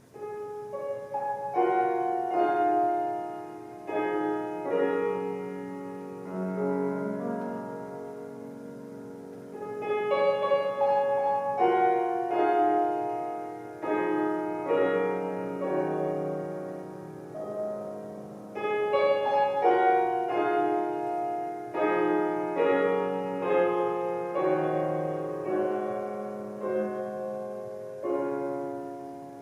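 Solo piano playing a slow, flowing piece: chords with a melody line on top, rising and fading phrase by phrase.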